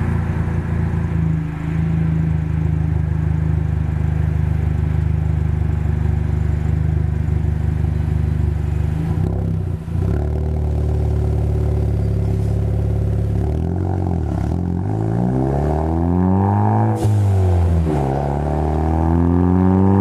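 2013 Ford Focus ST's turbocharged 2.0-litre EcoBoost four-cylinder, breathing through a Roush cat-back exhaust, droning steadily at cruise for about the first half. It then accelerates: engine speed climbs, drops sharply at an upshift, and climbs again near the end.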